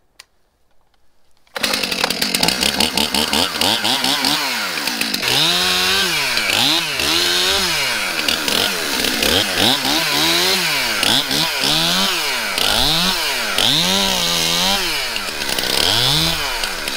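Two-stroke Stihl chainsaw cutting up brush and small branches, the engine revving up and dropping back over and over, roughly once a second, as each cut is made. The saw comes in abruptly about a second and a half in.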